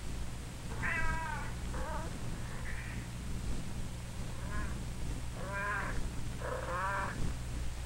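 A three-week-old kitten mewing: about six short, high calls, the last three louder, over a steady low hum.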